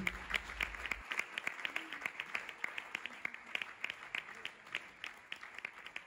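Scattered applause from a small group, irregular claps that thin out and fade toward the end.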